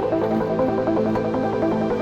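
Background electronic music: a steady pattern of short synthesizer notes stepping up and down.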